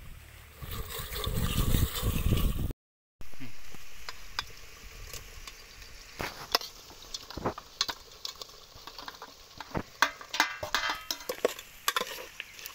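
A steel ladle scraping and clinking against an aluminium pot as cooked meat is tipped into simmering curry and stirred, with the curry sizzling. A low rumble fills the first few seconds, and the sound cuts out briefly about three seconds in.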